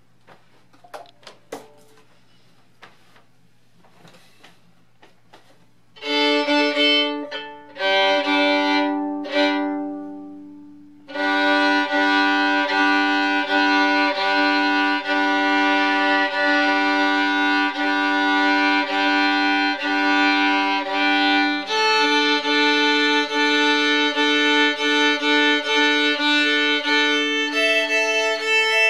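Solo fiddle. A few faint handling clicks come first. About six seconds in there are several long bowed chords that die away. From about eleven seconds a lively reel starts, with a steady drone string sounding under the fast melody notes.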